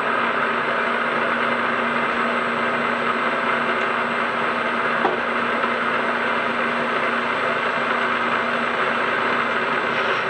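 Milling machine running steadily at speed, its spindle motor and drive giving an even hum and whir, with a small click about five seconds in.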